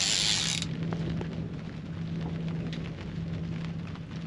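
Fishing reel's drag buzzing as a hooked fish, likely a tope, pulls line off, cutting off about half a second in. After that a steady low hum and scattered light ticks.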